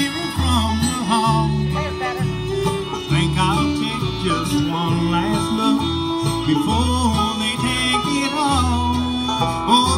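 Live country band playing, with guitar, banjo and bass notes underneath.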